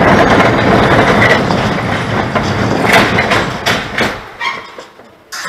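Steel roller coaster car rattling and rumbling along the track at speed, with a few loud clacks about three to four seconds in. The noise then falls away quickly as the car slows on a straight stretch of track, with one last sharp clack near the end.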